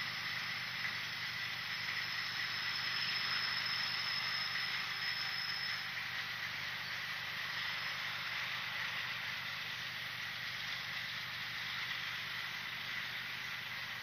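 Steady outdoor evening ambience: insects trilling continuously over an even hiss. A second, higher-pitched trill fades out about halfway through.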